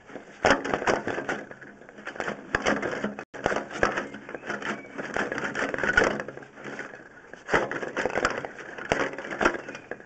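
Drain inspection camera and its push rod knocking and scraping as they are worked along a drain pipe: irregular clusters of clicks and clatters with short lulls.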